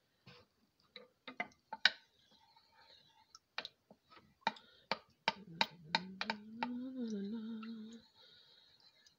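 Wooden spoon knocking against the slow cooker's stoneware insert while stirring a thick milky broth: a run of sharp, irregular clicks. A voice hums a held note for about two seconds past the middle.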